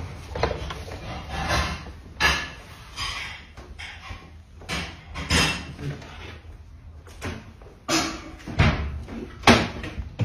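Irregular knocks and rustles, about a dozen spread over the stretch, the loudest near the end, with faint voices among them.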